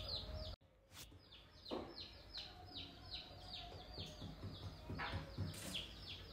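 A bird chirping over and over in short falling notes, about three a second, with a brief break a little after the start and a couple of soft knocks.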